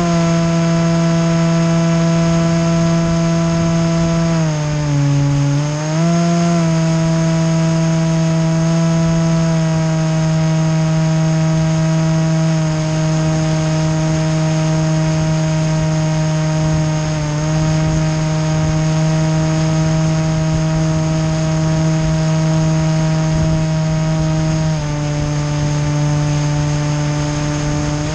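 The motor and propellers of a small remote-controlled aircraft carrying the camera, running with a steady buzzing hum. The pitch dips briefly about five seconds in, then recovers, and drops a little near the end as the throttle changes.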